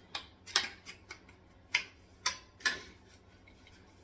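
A handful of sharp, unevenly spaced clicks and taps as the metal poles and plastic connectors of a shelving greenhouse frame are handled and fitted together, the loudest about half a second in.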